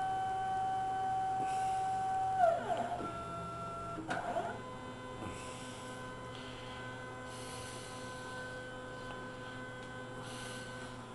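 Stepper motors on a CNC-converted 9x20 bench lathe whining as they drive the axes under program control. A steady tone drops sharply in pitch about two and a half seconds in, a short higher tone follows, and a second drop comes about four seconds in. A quieter, steady whine follows.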